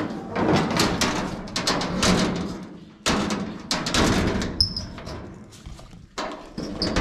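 Sheet-metal engine side panel of a 1947 Oliver 60 Row Crop tractor rattling and clanking as it is handled and latched, with sharp bangs about three and six seconds in.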